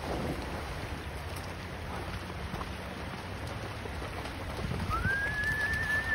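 Shallow river water running over stones, with a Belgian Malinois splashing through it. About five seconds in, a single long whistle rises, holds steady and falls away.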